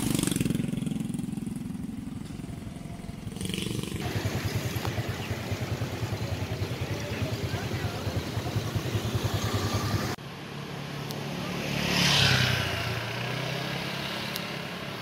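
Motorcycle engine running with street and traffic noise, broken by a couple of abrupt edits. A brief louder swell comes about twelve seconds in.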